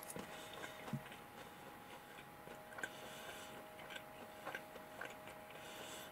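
Faint chewing of a mouthful of soft fried chicken nugget, with a few small soft mouth clicks spaced a second or so apart, over a faint steady hum.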